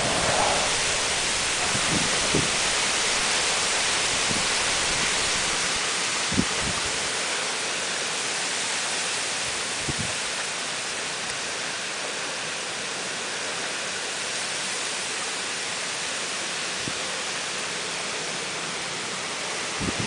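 Heavy typhoon downpour with wind, a steady hiss of rain, a little louder in the first few seconds. A few faint knocks come through it.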